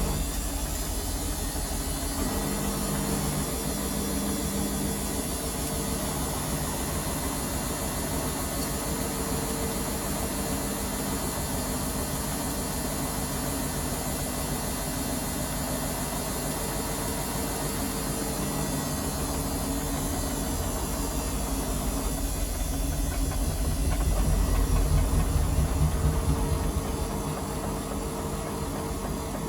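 Washing machine motor running with a steady hum and low rumble that swells louder about three-quarters of the way through. Others have suggested to the owner that the motor brushes are wearing out or the motor itself is going bad.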